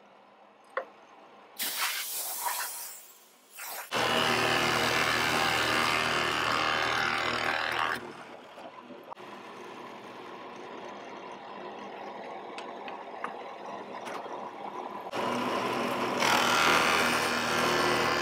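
Drill press switched on and running, a few handling knocks first; its wide flat-bottomed bit bores into the wooden board about 4 s in, the motor keeps running more quietly between cuts, and it bores again near the end.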